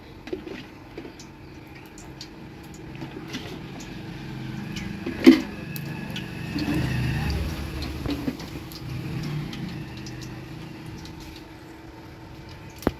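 A distant vehicle passing as a low rumble that swells and fades over several seconds, with scattered light clicks and one sharp knock about five seconds in.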